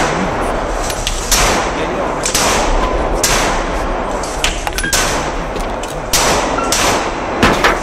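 Glock 9mm semi-automatic pistol fired shot by shot in an indoor range, sharp reports about a second apart, over a continuous background din.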